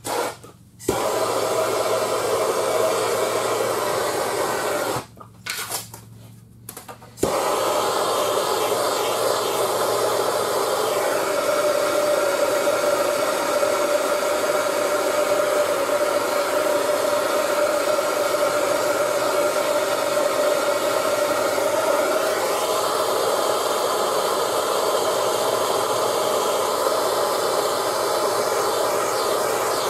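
Handheld trigger-start torch (Bernzomatic TS8000) burning with a steady hiss as it heats the unibody frame rail during a frame-straightening pull. It starts suddenly about a second in, cuts out for about two seconds around five seconds in, then burns steadily again.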